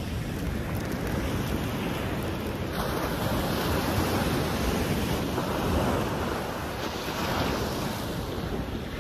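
Ocean surf breaking and washing up the beach, a steady rush of noise that swells and eases, with wind buffeting the microphone.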